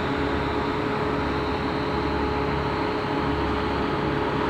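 Steady machine drone: a constant mid-pitched whine over a low rumble and hiss, with no change in pitch or level.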